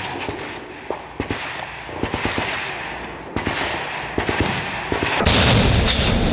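Many irregular gunshots from guns firing along the range, some in quick bursts of automatic fire. About five seconds in, a loud, dull rumble takes over.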